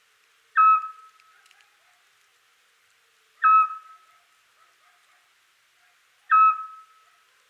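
Eurasian scops owl giving its territorial call: three short, single-pitched whistled notes spaced about three seconds apart, each followed by a faint echo.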